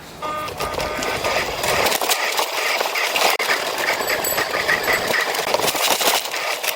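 Small electric motor and gears of a remote-control car running with a steady high buzz, starting about a quarter second in.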